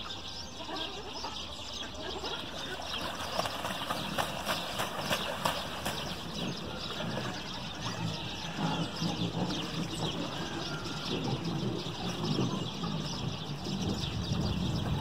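Outdoor ambience: a steady hiss with many small high chirps or ticks, and a low rumble that swells after about eight seconds.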